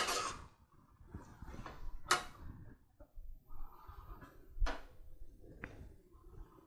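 A few sharp metal clinks and knocks a second or two apart, the loudest at the very start, with near quiet between: a metal spoon and a lid knocking against an aluminium cooking pot.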